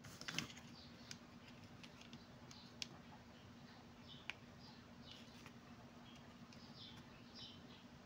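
Near silence with a few faint clicks of a plastic digital caliper being handled and its jaws closed on a copper wire, over a faint steady low hum.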